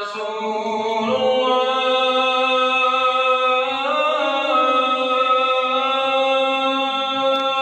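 A single voice chanting in long, drawn-out held notes, the pitch shifting about a second in and again near four seconds in.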